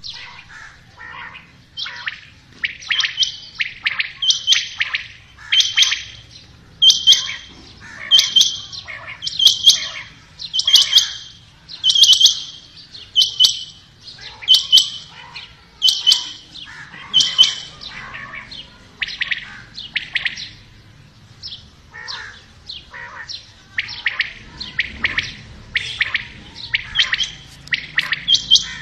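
Rain quail and common quail calling: short, sharp, high calls repeating about every second and a half, with fainter calls between them and a quieter spell about two-thirds of the way through.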